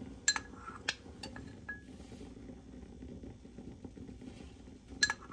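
A spoon clinks against glass cookware as cornstarch slurry is spooned into the soup. There are several sharp ringing clinks in the first two seconds and two more near the end, over a low steady background hum.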